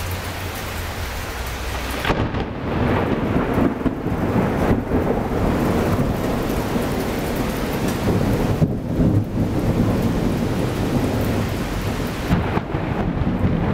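Heavy rain with thunder from a lightning strike: a crack about two seconds in that rolls on into a long, low rumble.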